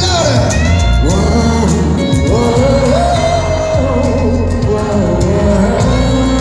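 Live pop music played through a concert sound system, with a man singing a held, wavering melody over the backing band.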